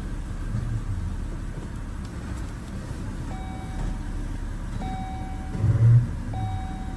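BMW X3 2.5si straight-six petrol engine running with a steady low rumble and no audible misfire after a coil pack replacement. From about halfway through, a short electronic beep repeats roughly every second and a half.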